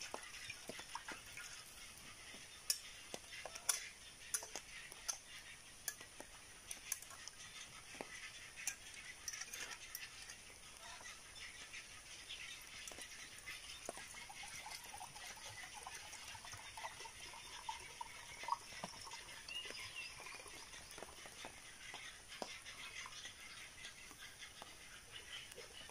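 Faint crackling and popping of a small wood cooking fire, with a few sharper clicks and knocks of metal camp cookware, louder near the start. Faint bird calls come and go through the middle.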